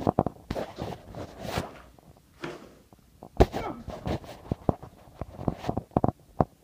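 Quick footsteps and knocks of someone hurrying along, with a few brief squeaky sounds between them.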